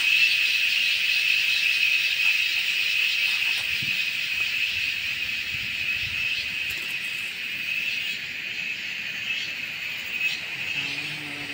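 Steady, high-pitched shrill drone of a chorus of insects, easing slightly in loudness over the seconds.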